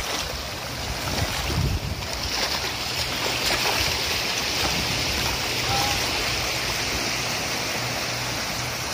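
Small waves breaking and washing steadily over a shallow beach, with water swishing around legs wading through it.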